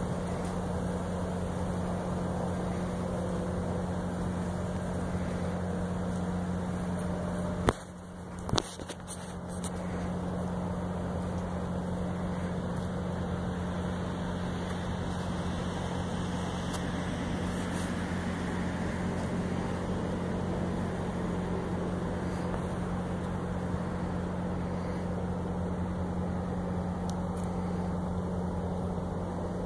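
Steady low hum of an idling car engine. Near eight seconds in there is a sharp click, the loudest event, and then a few faint clicks while the hum briefly drops away.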